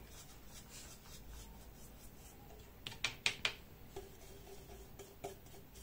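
Faint brushing of a flat paintbrush laying black chalk paint onto a plastic jar, with a few short clicks about three seconds in and single ones near four and five seconds.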